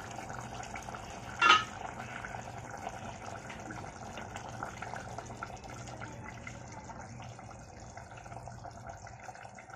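Thin curry gravy simmering in a steel pot, with a wooden spatula stirring through it; a single clink about a second and a half in.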